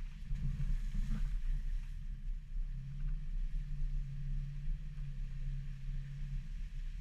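Subaru XV's flat-four engine pulling steadily at low speed on a rough dirt track: a low, muffled drone with tyre and suspension rumble underneath. A short knock comes about a second in.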